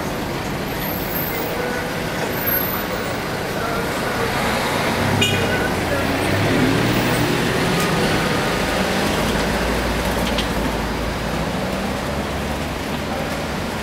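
Slow city street traffic: cars passing close by at low speed with their engines running, and a deeper engine rumble coming in about nine seconds in.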